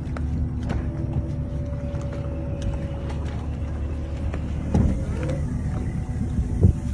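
A boat's outboard drive being power-trimmed down into the water: the trim motor whines steadily for a couple of seconds over the low hum of the running engine. A few knocks follow in the second half as the leg settles into the water.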